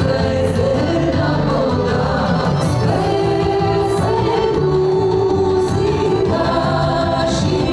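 A song with a woman singing over an instrumental backing, holding one long note about halfway through.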